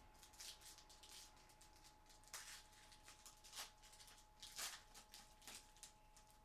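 Faint crinkling and rustling of a trading-card pack wrapper and cards being handled, in a handful of short scratchy rustles, the loudest about two and a half and four and a half seconds in, over a faint steady electrical hum.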